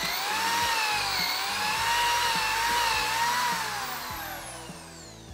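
Corded power drill running at speed and boring into a pressure-treated wooden 4x4 post, its whine wavering in pitch under the load, then winding down and fading near the end as it is let off.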